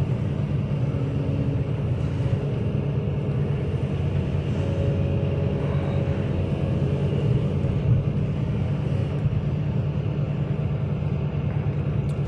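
Hydraulic excavator's diesel engine running steadily, heard from inside its cab while the boom raises the bucket.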